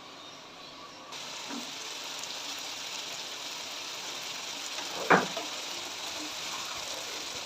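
Food sizzling as it fries in a cooking pot, the sizzle starting suddenly about a second in, with one sharp knock about five seconds in.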